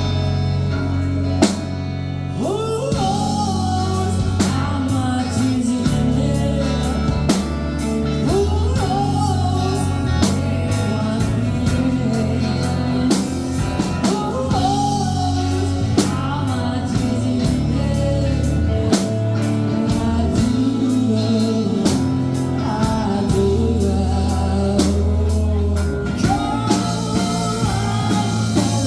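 A rock band playing live: a singer over electric guitar, bass and a drum kit keeping a steady beat.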